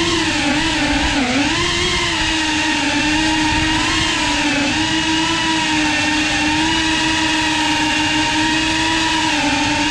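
Tiny whoop FPV drone's motors and ducted propellers whining loudly in flight. The pitch dips and wavers with the throttle over the first couple of seconds, then holds nearly steady.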